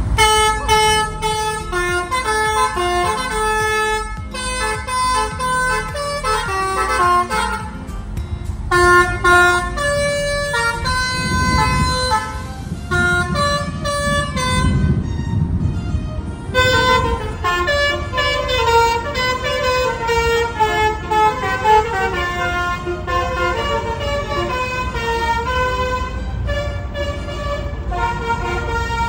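Multi-tone "telolet basuri" air horn on a Hino RM280 bus playing a melody, note after note. A low rumble runs underneath, strongest around the middle.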